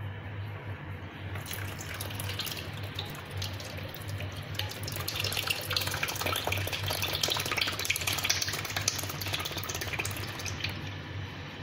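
Evaporated milk pouring in a thin stream from a can into a plastic bowl of grated cassava, splashing as the milk pools. The pour starts about a second and a half in and stops shortly before the end.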